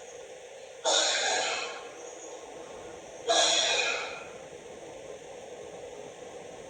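A man loudly clearing his throat twice, about two and a half seconds apart, each a harsh burst that fades within a second, over a steady background hiss.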